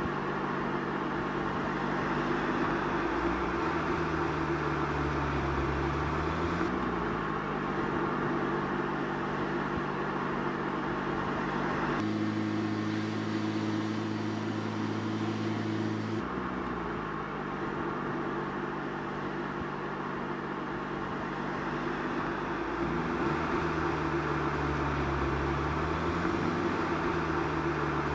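Volkswagen Golf R's turbocharged 2.0-litre four-cylinder engine running as the car drives, its note dipping and rising in pitch several times. The sound switches abruptly twice, about twelve and sixteen seconds in.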